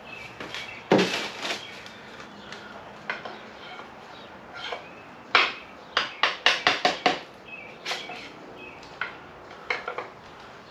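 Hand tools and metal engine parts clinking and knocking while the last pistons are removed from a 6.0 L LS V8 block. Some of the knocks have a short metallic ring, and a quick run of about six knocks comes a little past halfway.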